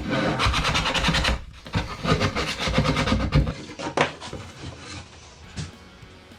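Rapid rasping strokes of a hand tool working wood, in two runs of about a second each, followed by a single knock about four seconds in.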